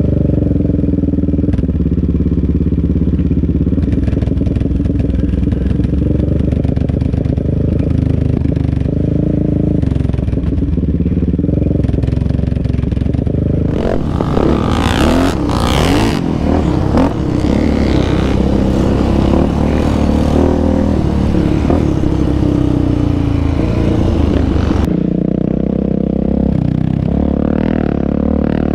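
Yamaha Raptor 700R quad engine running along a dirt trail with other off-road engines around, muffled and steady at first. About halfway through it turns brighter and louder for some ten seconds, with revving and rattling over the rough ground, then goes muffled again.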